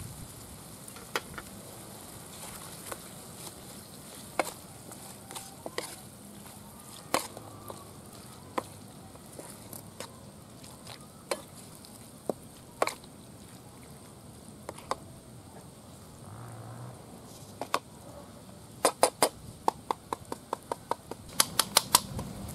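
Curry sizzling in a wok over a wood fire, with occasional single clacks of a wooden spatula against the pan as it is stirred. Near the end comes a fast run of sharp, loud knocks as a coconut is struck with a knife to crack it open.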